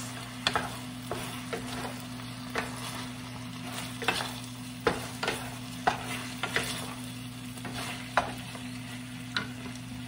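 Cabbage and tofu sizzling in a nonstick frying pan as two wooden spatulas toss them, the spatulas knocking against the pan in irregular clicks about every half second to second.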